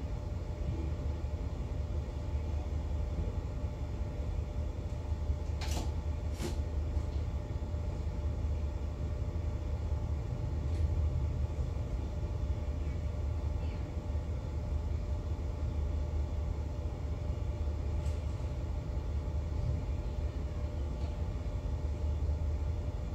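Steady low rumble and hum of a superyacht's engines and machinery, heard from the deck during slow manoeuvring. Two sharp clicks come about six seconds in.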